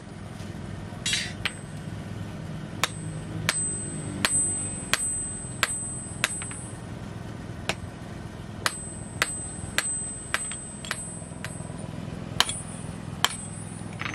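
Blacksmith's hand hammer striking a red-hot adze-axe head on an anvil: about sixteen sharp, irregularly spaced blows, several with a high metallic ring, over a steady low hum.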